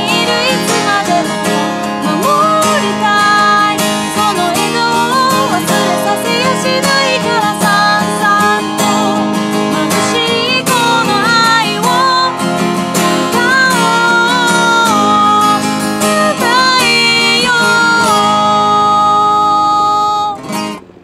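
A woman singing a ballad with her own acoustic guitar strummed beneath, just voice and guitar. The song closes on a long held note that fades out just before the end.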